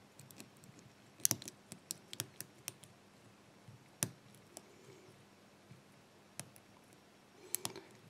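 Lock pick working the pins of a brass pin-tumbler padlock under tension: scattered faint metallic clicks as pins are lifted and set, with a sharper click about four seconds in. The core is in a false set, with the spool pins binding hard.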